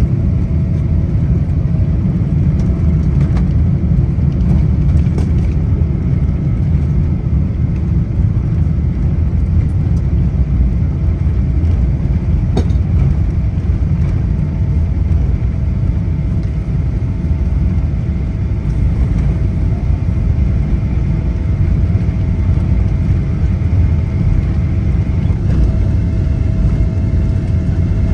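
Steady low rumble of engines and airflow inside the cabin of a Boeing 777-200ER airliner, with faint steady tones above it.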